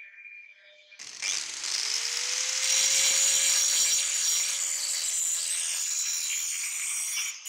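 Angle grinder with an abrasive disc starting about a second in, its motor tone rising as it comes up to speed. It then runs steadily, grinding along the edge of a spring-steel cleaver blade.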